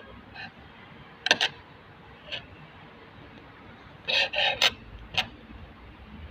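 Scattered clicks and scraping knocks of hand work on hard parts: two quick clicks, a single one, then a short cluster of scrapes and knocks about four seconds in.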